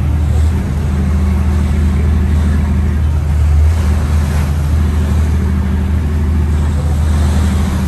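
A large engine running steadily nearby, a loud low hum that holds one pitch without revving.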